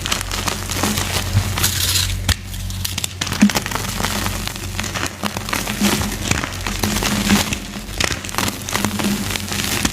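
Reformed gym chalk being crushed, a continuous run of soft crunches and crackles.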